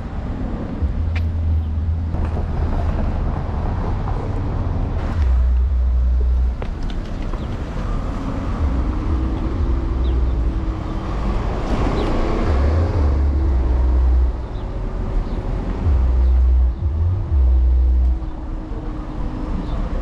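City street traffic heard from an electric scooter riding along the road, with the microphone on the handlebars. A heavy low rumble comes and goes on the microphone throughout. A steady hum runs from about eight seconds in until near the end.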